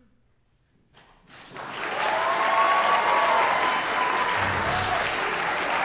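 Near silence at first, then audience applause breaks out about a second in, swelling to full within a second and holding steady, with a few voices cheering over it.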